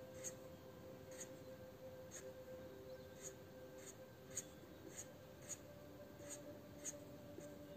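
Faint short scratches of a felt-tip marker on paper, one or two a second, as small scale-shaped strokes are drawn.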